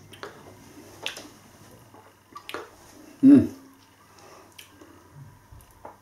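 A person tasting beer: wet lip smacks and tongue clicks, with one short vocal sound a little over three seconds in.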